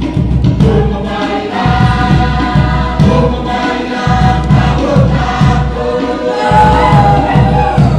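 Cook Islands dance music: a fast, steady beat on large drums with a group singing in chorus over it. The voices come in about one and a half seconds in, and the drumming pauses briefly a few times.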